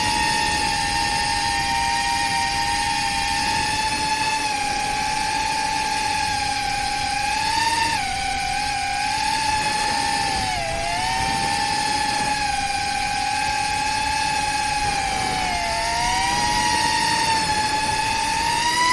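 FPV drone's electric motors and propellers whining at a steady high pitch, dipping briefly about eight, eleven and sixteen seconds in as the throttle eases, then climbing back near the end.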